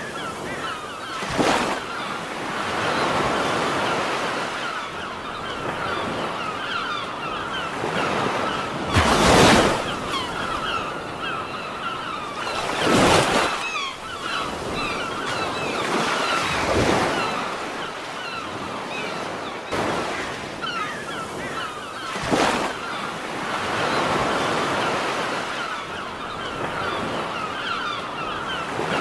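Sea surf breaking on a rocky shore: a continuous wash of foam, with a louder wave crash every few seconds. The biggest crashes come about a third of the way in and just before the middle.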